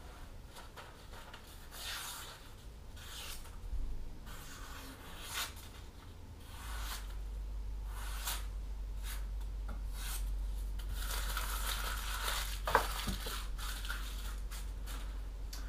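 A freshly sharpened kitchen knife slicing through a sheet of paper in a series of short, papery swishing and tearing strokes, testing the edge.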